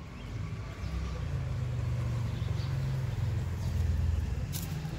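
A low engine-like rumble that swells about half a second in and fades near the end, with a short sharp click near the end.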